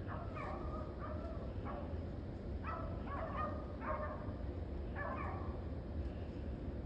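A pack of rabbit hounds baying while running a rabbit's trail, with several voices giving mouth in overlapping calls roughly every second. A steady low rumble runs underneath.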